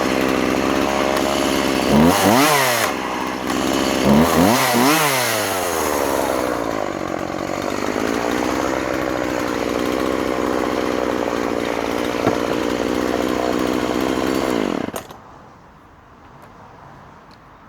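Husqvarna 136 two-stroke chainsaw (36cc) revving up and down twice, then held at full throttle cutting through a log. The engine stops abruptly about fifteen seconds in.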